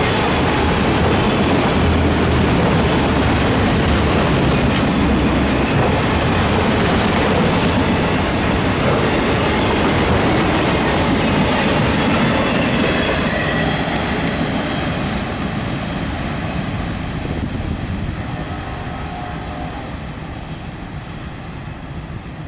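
Freight train of enclosed autorack cars rolling past on steel wheels, a steady rolling noise that grows gradually quieter over the last several seconds.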